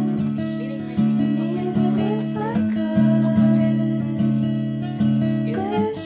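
Background music on acoustic guitar: plucked notes and chords struck about once a second, with short sliding notes between them.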